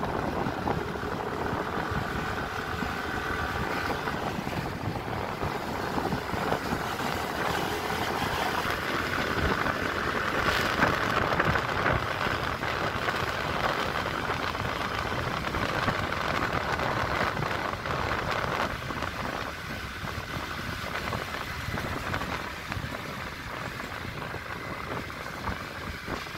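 Steady road noise from riding in a moving vehicle through city traffic: an even rush of engine, tyres and air that holds level throughout.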